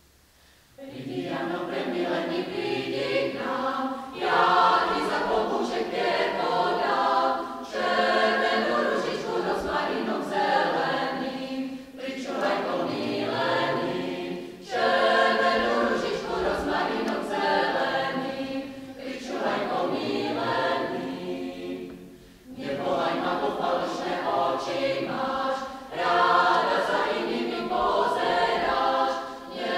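Mixed choir of women's and men's voices singing a cappella under a conductor, starting about a second in and moving in phrases with brief breaks between them.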